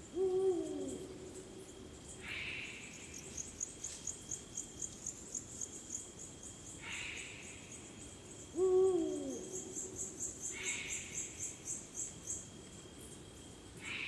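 Eurasian eagle-owl hooting: two deep single hoots about eight seconds apart, each about a second long and dropping in pitch at the end. Behind them, crickets and other insects keep up a fast, high ticking chirp and a thin steady trill.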